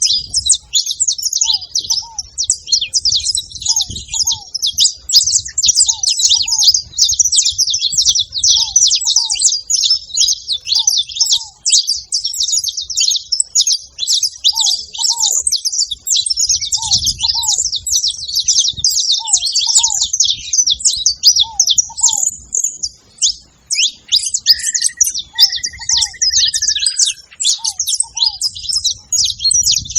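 A flock of saffron finches chirping together in a dense, unbroken chatter of many overlapping calls. Beneath it a softer, lower double note repeats every second or two, and a short held whistle sounds a little before three-quarters through.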